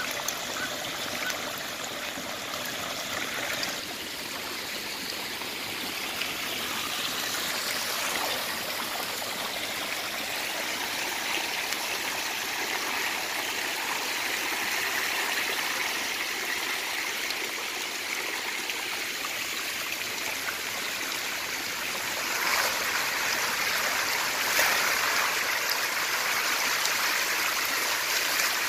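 Steady splashing and rushing water from a densely stocked tank of desi magur (walking catfish) thrashing at the surface, with water pouring in from an inlet pipe. A couple of louder splashes stand out near the end.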